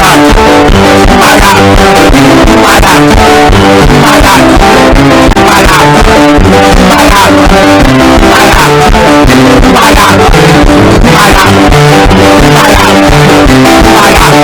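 Loud music with guitar and bass, playing steadily throughout.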